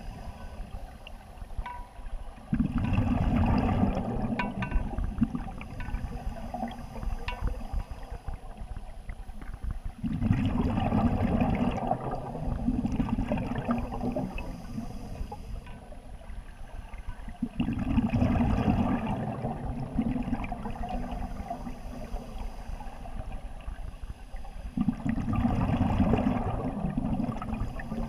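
Scuba diver breathing underwater through an open-circuit regulator: four slow breaths about seven seconds apart, each a few seconds of bubbling exhaust, with quieter stretches between.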